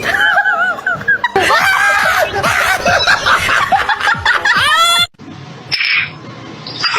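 High-pitched laughter with a wavering pitch for about five seconds, cutting off suddenly.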